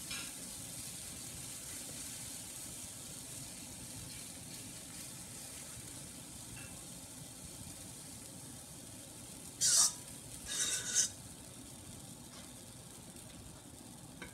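Thick batter with minced meat, peas and spinach sizzling steadily in a frying pan. A couple of brief, louder scrapes of a spatula against the pan come about ten seconds in.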